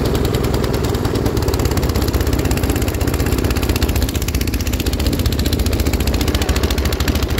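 Gas snowblower engine running steadily and loudly, with a rapid, even pulse.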